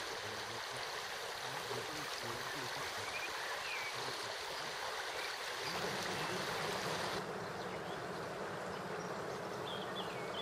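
Stream water running steadily, with a few short bird chirps. The water sound changes abruptly twice, about six and seven seconds in.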